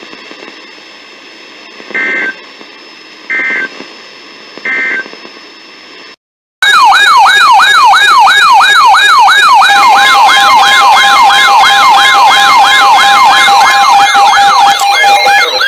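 Three short buzzy data bursts of a NOAA Weather Radio SAME end-of-message code over faint radio hiss. A moment of silence follows, then a loud electronic siren starts yelping, its pitch sweeping up and down about three times a second, with several other siren tones layered over it.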